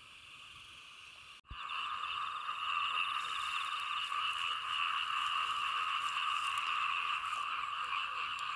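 Chorus of many frogs calling in wet fields after rain, a steady dense din. It starts abruptly about a second and a half in, after a quieter stretch.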